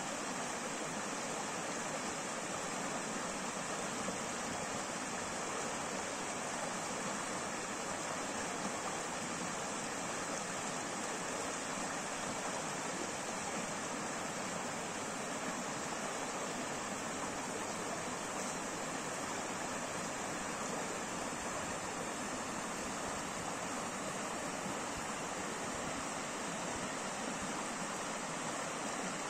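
Shallow rocky stream running over stones and small cascades, a steady, unbroken sound of flowing water.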